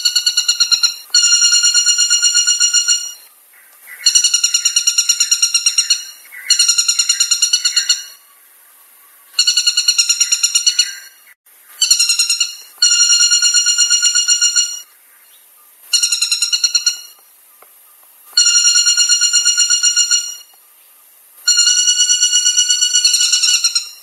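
Woodpecker calling: about ten loud bursts of rapid, high, ringing notes, each burst one to two seconds long, separated by short pauses.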